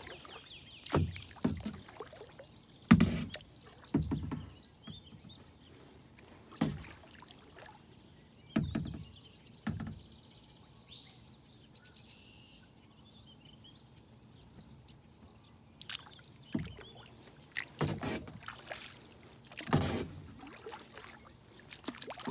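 Kayak paddle strokes dipping and splashing in calm lake water, irregular strokes every second or two, with a lull of several seconds in the middle before the strokes resume.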